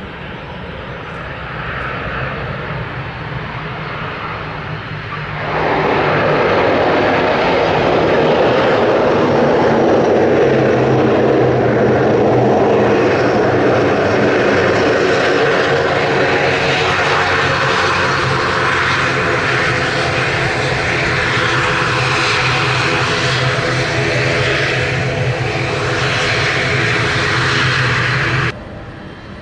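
ATR 72 turboprop's engines and propellers on the runway just after touchdown, with a steady low drone; about five seconds in the sound jumps to a loud, steady roar that holds for over twenty seconds, then cuts off suddenly near the end.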